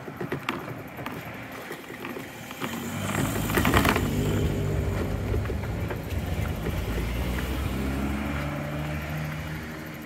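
A motor vehicle's engine running close by. It swells to its loudest about four seconds in, then holds a steady low hum that fades near the end.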